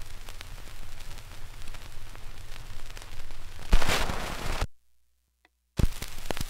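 Surface noise of a 1941 Keynote 78 rpm shellac record between tracks: steady crackle and ticks over a low hum. Past halfway a louder burst of crackle comes, then the sound cuts out completely for about a second and returns with a thump.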